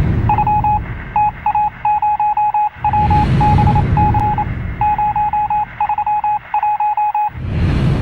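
Morse code: a single steady beep keyed on and off in short and long elements, sending amateur-radio CW. Under it a low rushing sound effect swells and fades three times, the last near the end.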